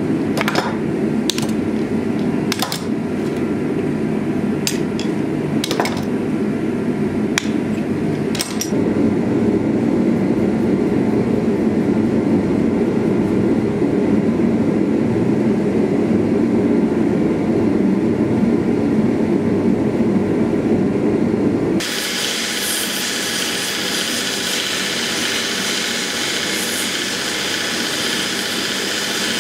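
Workshop sounds: several sharp clicks and knocks in the first nine seconds or so as clamps and tools are handled on the bench, over a steady low noise. About 22 seconds in, this cuts abruptly to a belt grinder running, its belt sanding a wooden sword-handle core with a brighter, higher, steady noise.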